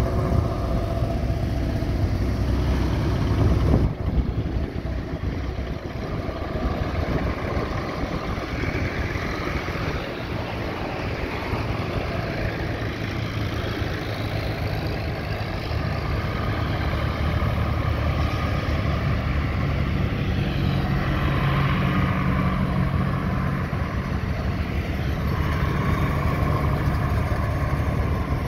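Engines of several vintage tractors running as they drive past one after another, with an abrupt cut about four seconds in.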